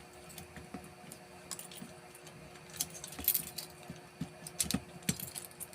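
Light metallic clicks and jingles as a padlocked steel cable lockout and its padlocks are handled, coming in small clusters around the middle and near the end, over a faint steady hum.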